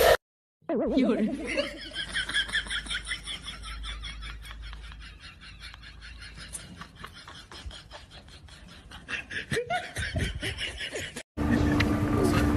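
A person laughing with a high-pitched giggle of quick, repeated 'ha' sounds, loudest at first and then tailing off over several seconds. Near the end it cuts off abruptly into a louder, different sound.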